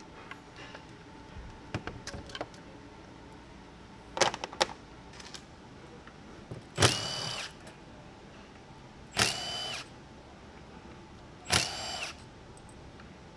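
Light clicks and taps of small metal parts, then a small cordless power tool whirring in three short bursts about two and a half seconds apart, each with a brief rising whine as the motor spins up.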